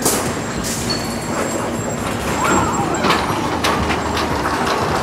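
Roller coaster car rumbling along its steel track, with a few sharp clacks.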